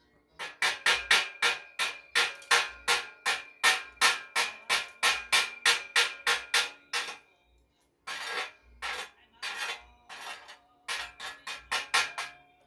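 A metal hammer striking steel in quick, ringing blows, about three a second for some seven seconds, then after a brief pause a looser, less even series of strikes.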